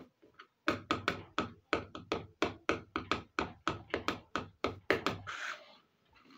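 Small plastic toy cooking pot knocked rapidly against a tabletop as it is moved along, about five sharp knocks a second for some four seconds, ending in a short scrape.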